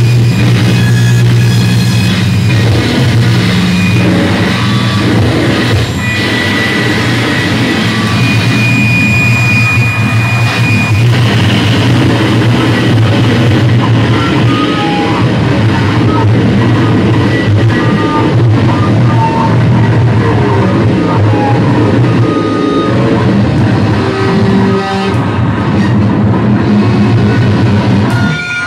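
Loud electric guitars played through effects pedals and an amplifier: a dense, steady low drone with short high tones scattered over it and one held high tone near the middle.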